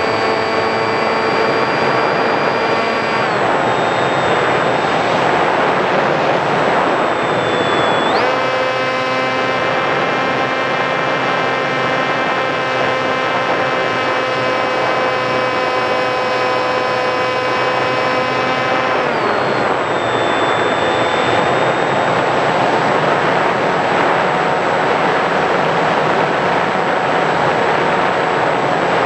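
Electric motor and propeller of a Sky Surfer RC glider whining steadily over heavy wind rush on the onboard camera's microphone. The whine drops in pitch a few seconds in, jumps back up about a quarter of the way through, and drops again about two-thirds of the way through, as the throttle changes.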